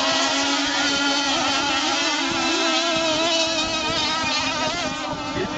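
Several radio-controlled racing boats running at speed, their motors giving a continuous high-pitched whine that wavers in pitch in the second half as the boats turn.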